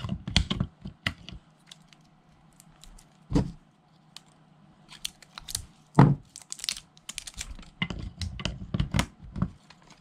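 Hands peeling thin plastic wrap off batteries and fitting them into a plastic battery compartment: crinkling, small clicks and taps, with two louder knocks, one about a third of the way in and one at the midpoint.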